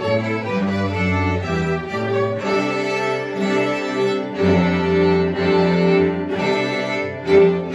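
Small string ensemble of bowed violins and lower strings playing sustained chords over a moving bass line, with a sharp loud accent near the end.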